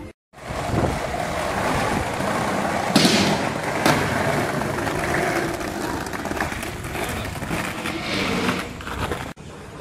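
Skateboard wheels rolling over rough paving, a steady gritty rolling noise, with a sharp clack of the board about three seconds in and another about a second later.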